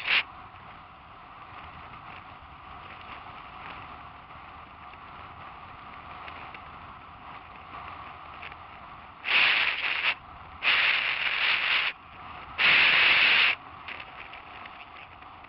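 Steady rushing wind and tyre noise on a helmet-mounted camera's microphone during a bike ride on a gravel road. About nine seconds in come three loud, harsh bursts of rubbing noise on the microphone, each about a second long, that start and stop abruptly.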